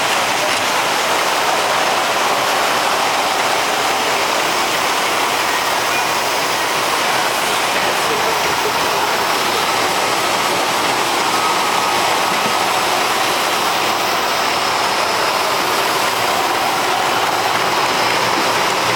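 Automated bottle packaging line running: conveyors carrying plastic bottles past capping and induction cap-sealing machines, giving a steady, unbroken mechanical noise.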